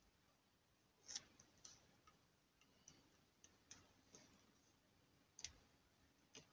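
Near silence with faint scattered clicks and small rustles of hands handling a car-radio wiring harness and wrapping electrical tape around its wire joins.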